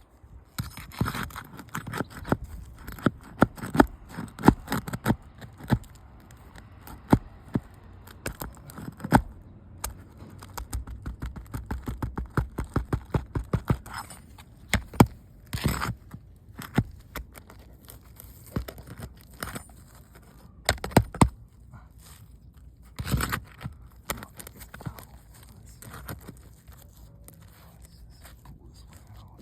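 Asphalt roofing shingles being worked loose and their fasteners pulled: an irregular run of sharp knocks and scraping, densest about eleven to fourteen seconds in, with a few louder strikes later on.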